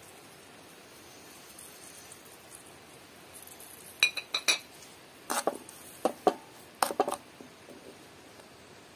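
Metal spoon clinking against china dishes and a cooking pot: a few ringing clinks about four seconds in, then a run of sharper taps over the next three seconds.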